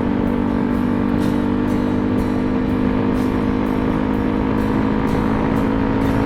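Yamaha Ténéré 250's single-cylinder four-stroke engine running steadily at high revs at highway cruising speed, its exhaust note coming through an aftermarket free-flowing sport muffler, with wind rush on the moving bike.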